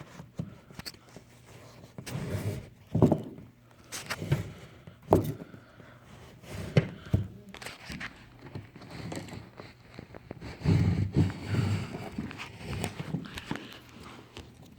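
Irregular knocks, thumps and rubbing from handling as cable is fished through a wall, with a few sharp knocks and a denser spell of thumping about eleven seconds in.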